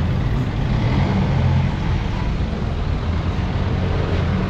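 Steady street traffic close by: motor vehicles running past on the road, a steady low engine hum under general road noise.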